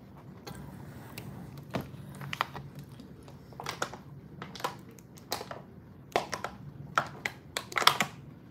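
Thin plastic water bottle crinkling as it is drunk from, a series of sharp crackles and clicks that come louder and closer together near the end.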